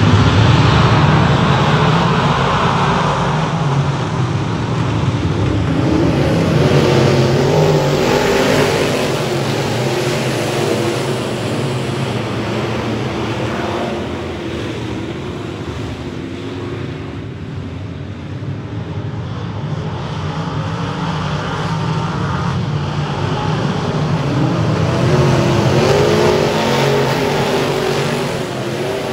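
A pack of dirt-track stock cars racing on the oval, engines running hard. The pack is loudest as it passes at the start and again near the end, and fades in the middle while the cars are on the far side of the track.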